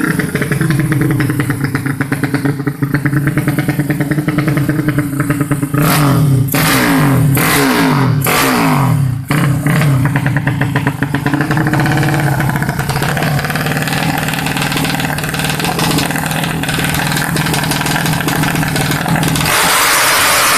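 Race-tuned 135cc motorcycle engine running steadily, then revved up and down several times a third of the way in before settling back to a steady run. It grows louder and harsher near the end.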